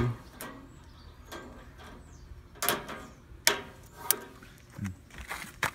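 Scissors snipping at plastic zip-tie tails: four sharp, short snaps spread over the second half.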